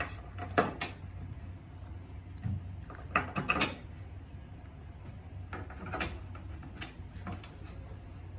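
Irregular clicks and light knocks of screws and rack parts being handled as bolts are put into a display rack, over a low steady hum.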